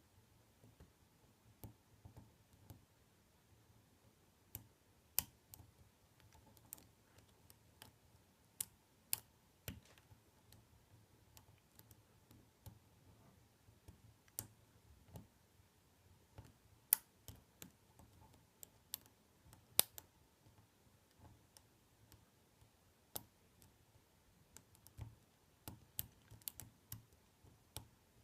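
Faint, irregular clicks of a lock pick probing the spool and serrated pins of an ABUS C83 padlock under light tension during single-pin picking. A few louder clicks stand out past the middle.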